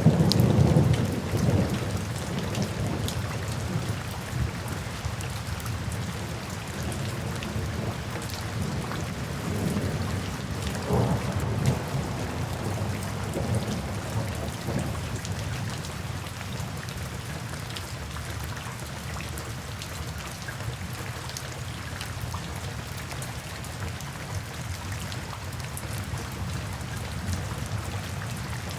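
Steady rain falling, with scattered individual drops. Thunder rumbles loudly at the start and again, more weakly, about ten seconds in, then dies away, leaving only the rain.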